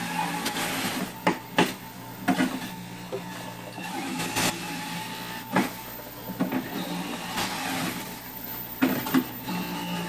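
An electric juicer's motor running steady, with repeated knocks and thuds as apple pieces are pushed down its feed chute and ground up.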